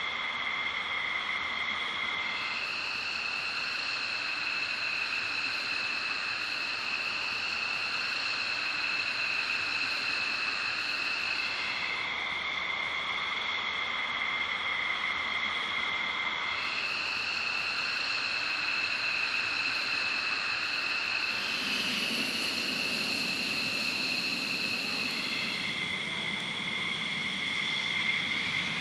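High, steady turbine whine from jets and ground equipment on a fighter flight line. Its pitch steps between two settings every few seconds, and a deeper rumble joins about three quarters of the way through.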